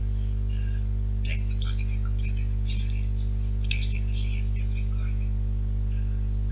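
Steady electrical mains hum, a constant low buzz with many overtones, with faint scattered high-pitched chirps and ticks over it.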